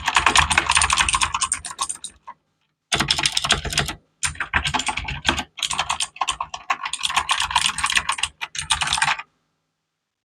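Fast typing on a Redragon Mitra K551RGB mechanical keyboard with blue switches, giving a clear click on each keystroke. The keys clatter in quick runs with short breaks about two and four seconds in, and the typing stops about nine seconds in.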